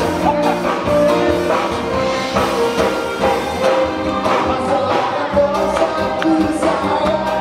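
A woman singing into a microphone over amplified backing music, with a steady band accompaniment.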